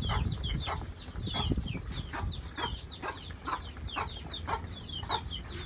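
Chickens clucking, with many rapid high-pitched chirps repeating several times a second throughout.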